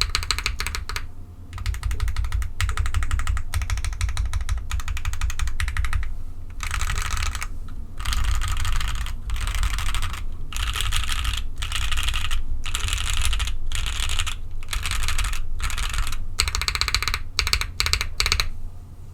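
Custom 60% mechanical keyboard with a gummy O-ring mount, a polycarbonate plate and lubed JWK Popus linear switches, typed on fast in bursts of rapid key clacks separated by brief pauses. The typing stops just before the end.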